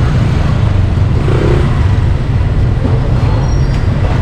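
Steady low rumble of passing motor traffic, with a general street din over it.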